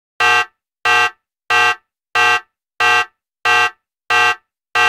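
An electronic beep repeating evenly, eight short identical tones about one and a half per second, with dead silence between them.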